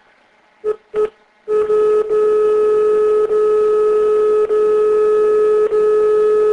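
Two short telephone beeps, then a loud, steady telephone line tone at a single pitch, broken by brief dropouts about every second.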